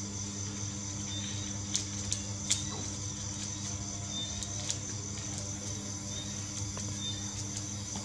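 Origami paper being folded and creased by hand: a few short, sharp crinkles and taps, about two seconds in and again near the middle, over a steady background hum.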